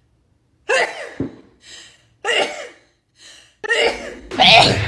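A woman sneezing about four times in quick succession, the last sneeze the loudest, near the end. The sneezes are set off by sniffing herbal snuff powder.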